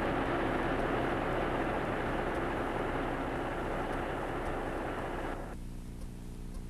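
A steady rushing, rumbling noise that cuts off abruptly about five and a half seconds in, leaving only a low steady electrical hum.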